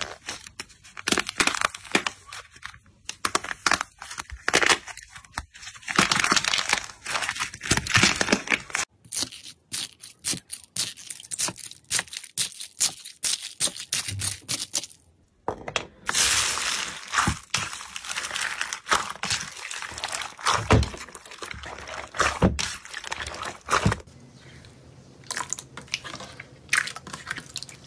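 Crackling and crunching of the dried crust on purple clay slime breaking up under pressing fingers. Later comes a rustle of foam beads stirred in a bowl, and near the end slime being squeezed by hands in a basin of water.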